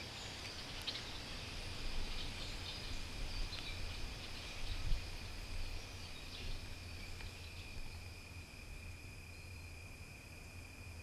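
A steady, high insect chorus drones on without a break, with a few short chirps in the first half and a low rumble underneath.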